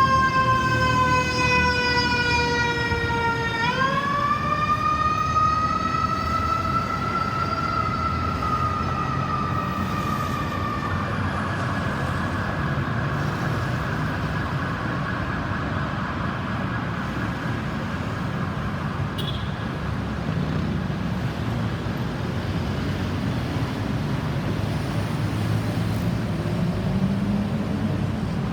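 Ambulance siren sounding a slow wail: the pitch falls over a few seconds, sweeps back up and climbs slowly, then stops about 11 seconds in, leaving steady traffic noise.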